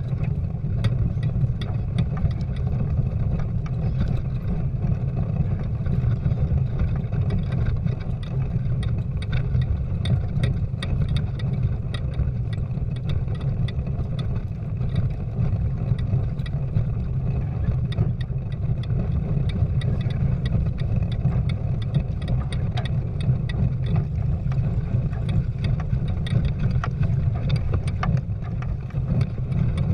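Steady low rumble of water and wind noise as a Prindle 16 sailing catamaran moves through the water, heard close to the hull, with frequent light knocks and slaps throughout.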